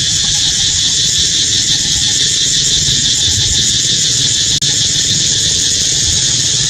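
Steady, loud insect chorus: a continuous high, shrill buzz with a low rumble underneath.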